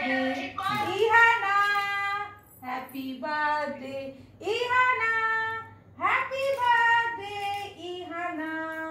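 A high voice singing unaccompanied, in slow phrases of long held, gliding notes with short breaks between them.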